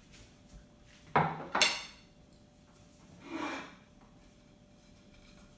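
Dishes clattering: two sharp knocks in quick succession a little after a second in, then a softer scraping rub.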